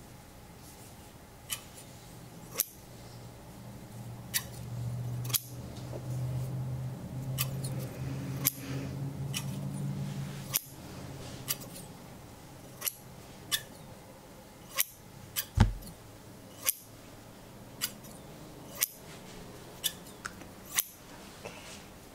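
Scissors snipping in the air near the microphone, a short sharp snip every second or so, one louder with a low thump about two-thirds of the way in. A soft low hum runs under the snips for a few seconds in the first half.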